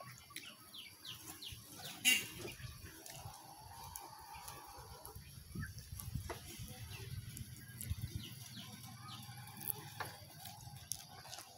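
Chickens clucking faintly, with short chirps, while a bundle of cut brush is handled. A few sharp clicks, the loudest about two seconds in.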